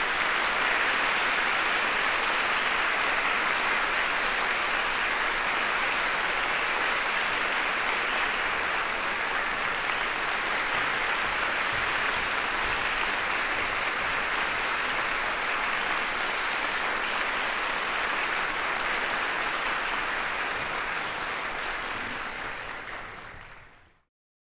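Audience applauding steadily in a concert hall, dense and even, fading out near the end.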